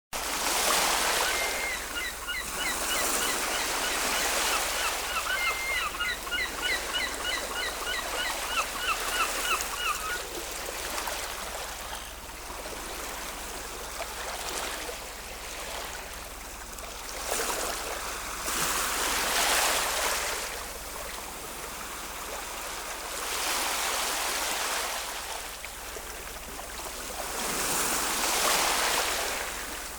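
Ocean waves washing in, the surf swelling and falling back every few seconds. Over roughly the first ten seconds, a run of quick repeated bird calls sounds above the surf.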